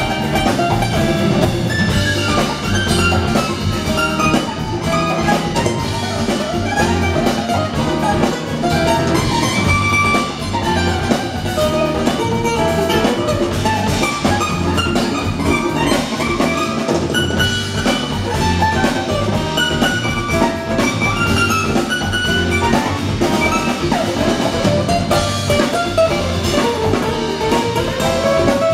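Live acoustic band playing: two strummed acoustic guitars, bass guitar and hand drums keeping a steady rhythm.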